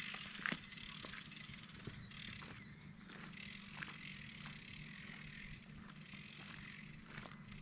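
Insects chirping in a steady high, rapid pulse, about five chirps a second, with scattered small clicks and taps, the sharpest about half a second in.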